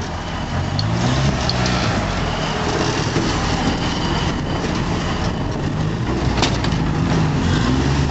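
Rock-crawling buggy's engine revving up and down under load as it climbs over boulders, in two surges, with a couple of short sharp knocks.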